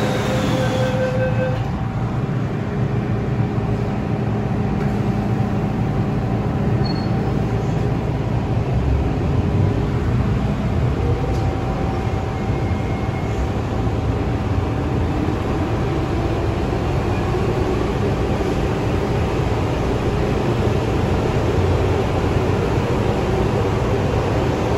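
MTR Tsuen Wan Line M-train running between stations: a steady rumble of wheels on the track with faint steady tones from the running gear.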